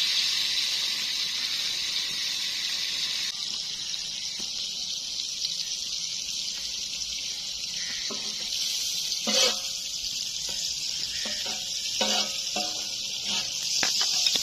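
Chapli kebabs shallow-frying in hot oil in a karahi, a steady sizzle throughout. A few short sounds rise over it, the loudest about nine seconds in.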